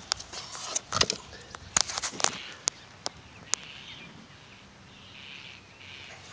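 Footsteps and small knocks as the camera is carried around, sharp and close in the first few seconds, then a quieter outdoor background with faint bird chirps.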